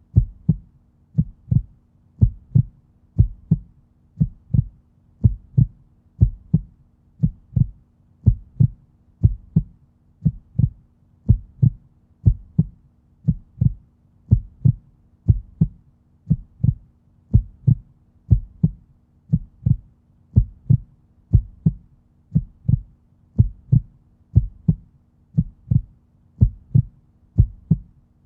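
Human heartbeat, a steady lub-dub rhythm of paired low thumps repeating evenly, over a faint steady hum.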